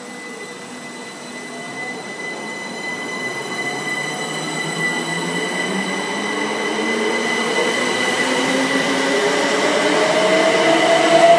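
c2c Class 357 Electrostar electric multiple unit pulling away from the platform. Its traction equipment whines, with one steady high tone and a lower tone that rises in pitch as the train gathers speed, getting louder as it goes.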